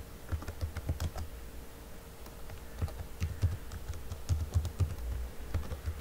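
Typing on a computer keyboard: irregular key clicks, several a second, each with a soft low thud.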